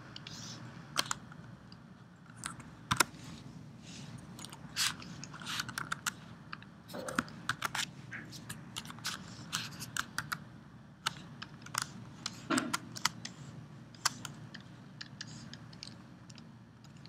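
Scattered, irregular clicking of computer keyboard keys and mouse buttons over a faint steady room hum.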